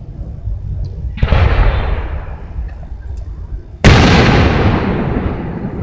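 Aerial firework shells bursting: one boom about a second in and a louder, sharper one near four seconds. Each is followed by a fading rumble.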